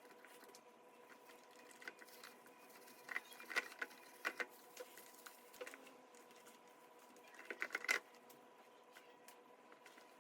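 Stand mixer attachments being handled and scrubbed: small clicks and scrapes in two short clusters, about three seconds in and again near eight seconds, over a faint steady hum.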